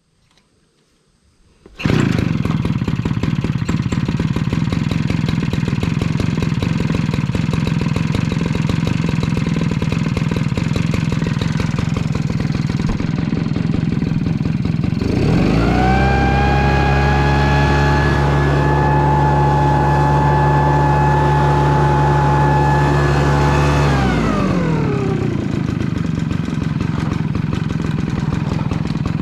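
Maruyama MDJ60G-26 backpack power duster's small engine starting suddenly about two seconds in and running at idle. About halfway through it revs up with a rising whine, holds high for about nine seconds, then falls back to idle. This is a test run after the carburetor was cleaned on a machine left unused for about five years.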